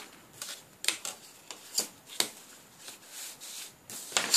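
Plastic set squares being slid over and set down on drawing paper: paper rustling and rubbing, broken by four sharp taps as the squares knock against each other or the board.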